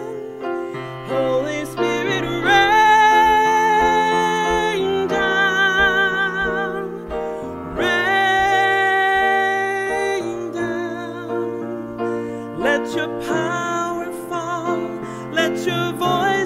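A woman singing a hymn solo with piano accompaniment, holding two long notes with vibrato, one about two seconds in and another near the middle.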